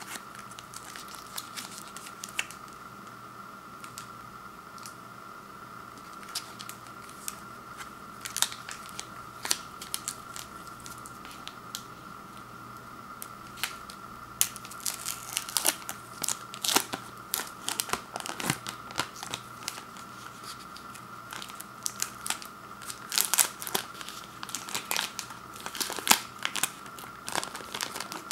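Plastic candy-bar wrapper of a Kit Kat Duos bar crinkling and tearing as it is handled and opened. Sparse crackles at first, growing denser and louder from about halfway through.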